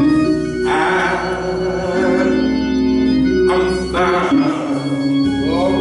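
Organ playing held chords behind a man singing gospel into a microphone. The voice comes in with long sung phrases, about a second in and again around four seconds, while the organ chords shift a couple of times.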